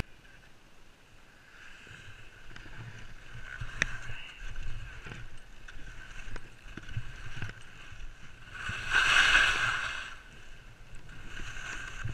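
Skis sliding and scraping on packed snow during a downhill run, a hiss that swells and falls with the turns, over a low rumble of wind on the helmet camera's microphone. About nine seconds in, a louder hiss lasts about a second and a half.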